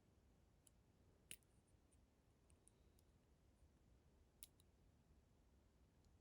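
Faint, scattered clicks of a dimple pick working the pins inside a Lince 3/50 dimple padlock, with two slightly sharper ticks about a second in and at about four and a half seconds.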